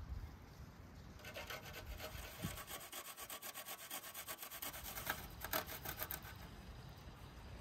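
Garlic cloves being grated on a stainless steel box grater: quick, regular rasping strokes, about five a second, starting about a second in and stopping near the end.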